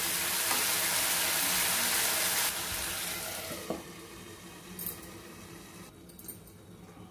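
Brinjal curry sizzling in oil in a pan, a steady hiss that drops sharply about two and a half seconds in. A glass lid is set on the pan with a light knock a little later, and the sizzle goes on faintly under it.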